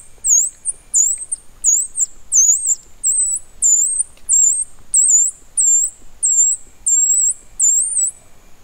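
Squirrel distress call being worked by hand: a fast series of shrill, high squeals, about two a second, each dipping and rising in pitch, imitating a young squirrel caught by a predator to draw in or set off adult squirrels. The squealing stops shortly before the end.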